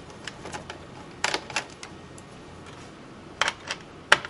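Small sharp clicks and taps of a screwdriver working screws out of a Dell Inspiron 1525 laptop's plastic case: two clicks a little over a second in, two more about three and a half seconds in, and a sharper click near the end.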